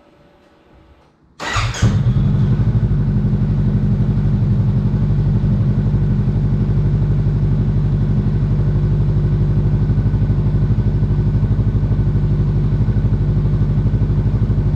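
2019 Honda CBR500R's parallel-twin engine, breathing through an aftermarket Scorpion slip-on exhaust, starts about a second and a half in and settles at once into a steady idle. The engine is already warm.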